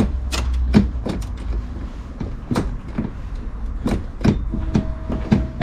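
Irregular clicks and knocks from an MX-5's automatic gear selector and its trim being worked while the car is stuck in park, with a low hum in the first second and a short steady tone near the end.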